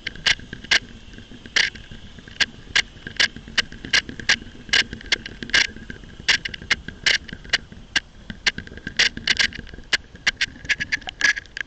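Irregular sharp clicks and ticks, several a second, over a faint steady high whine.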